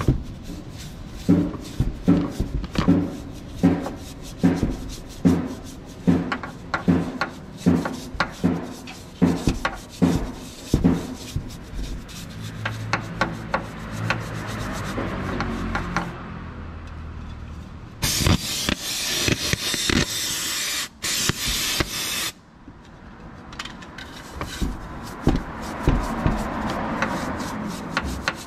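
Hand brush scrubbing the oily engine casing, rubbing back and forth in quick strokes about two a second, then more softly. About eighteen seconds in, a loud hiss lasts about four seconds.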